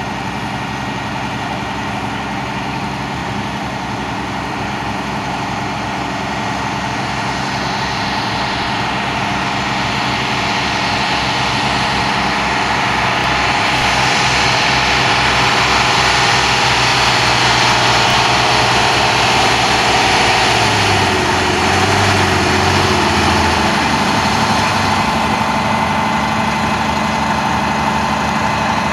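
Air-cooled Deutz diesel engine of a 1962 Magirus-Deutz hose truck running at low speed as the truck creeps along. It grows steadily louder toward the middle as the truck comes closer, then eases slightly.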